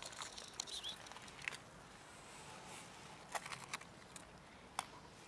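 Cats chewing dry kibble: scattered small crunches and clicks, with a quick cluster of them about three and a half seconds in.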